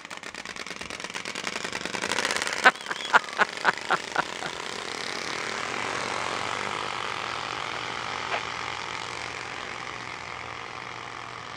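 Trading cards taped to two BMX bikes so they flap against the spokes as the bikes are ridden, a rapid motorcycle-like clatter that builds over the first couple of seconds, then slowly fades as the bikes pull away. A quick run of about six sharp clicks comes about three seconds in.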